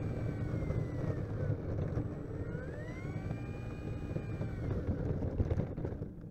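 Brushless electric motor of an RC model plane whining as it taxis on an asphalt runway. Its pitch falls, rises again about two and a half seconds in and falls once more, over a steady low rumble of rolling on the pavement. The sound fades at the very end as the motor winds down.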